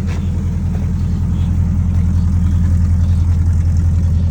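1979 Chevrolet C10 pickup's engine idling steadily.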